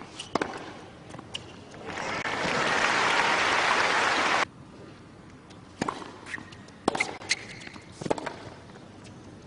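Tennis crowd applauding as a set ends 6-3, building up and then cutting off abruptly about halfway through. Before and after it, a few sharp knocks over a quiet background.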